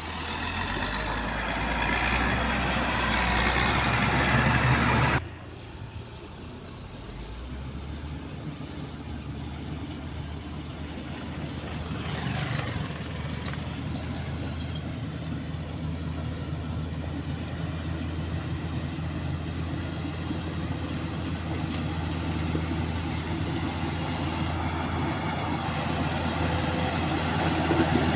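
Diesel engine of a Caterpillar 120K motor grader running steadily at a low, even pitch. A louder, busier stretch cuts off abruptly about five seconds in, then the engine continues, slowly growing louder.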